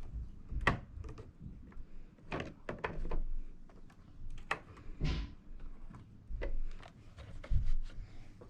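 Irregular plastic clicks and knocks, with a few heavier thumps, from hands handling the instrument cluster and twisting new bulbs into their sockets with a quarter turn.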